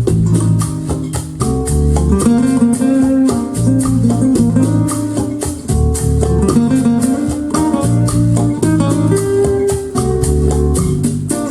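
Jazz-fusion music played through KEF Q11 loudspeakers driven by a Pioneer SA-708 amplifier: a busy guitar line over bass notes, with a fast, even shaker-like percussion beat.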